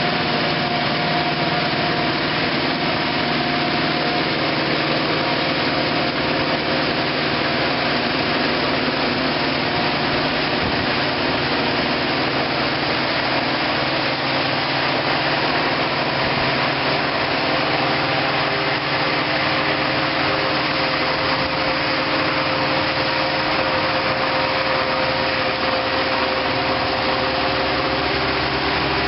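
Farm machinery working in a maize silage harvest: a steady engine noise with a few whining tones that drift slowly in pitch.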